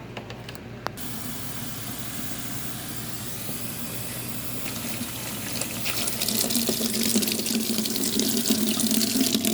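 Water running from a tap into a spray bottle, filling it. There is a click about a second in, then a steady rush that grows louder with a low hum over the last few seconds, and it cuts off suddenly at the end.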